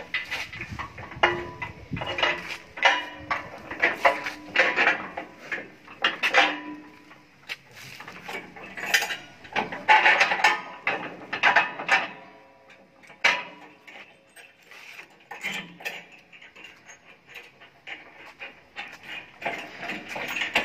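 Irregular metal clanks and clinks as the steel mould parts of a concrete block machine are handled and fitted by hand, some knocks ringing briefly. The knocks come thick at first and thin out about two-thirds of the way through.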